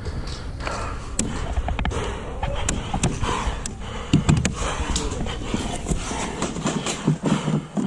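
Movement noise of an airsoft player's gear: scattered sharp clicks and knocks and a few dull thumps over a steady low rumble.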